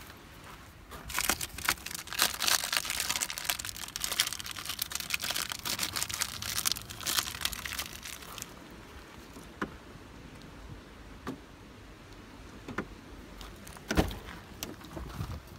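A rag rubbing and crinkling over a car battery's plastic case, a dense crackle for about seven seconds. Then quieter handling, and a sharp click near the end as the car's door handle is pulled.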